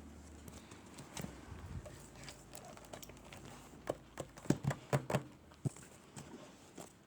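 Handling noises from unboxed items: a faint rustle, then a quick run of light taps and clicks starting about four seconds in.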